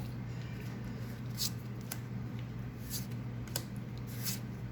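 Pokémon trading cards and booster packs being handled: a few brief, light rustles and clicks, about four in all, over a low steady hum.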